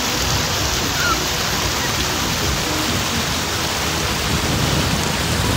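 Small waves washing onto a rocky beach, giving a steady rushing hiss.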